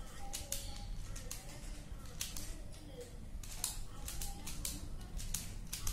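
Plastic Pyraminx puzzle being twisted by hand: quick, irregular clicks and snaps as its layers and tips are turned, several a second.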